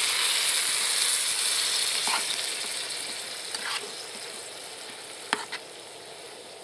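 Chicken stock hitting a hot pan of frying duck, mushrooms and pears: a loud sizzle that dies away over a few seconds as the liquid settles. Two sharp clicks come near the end.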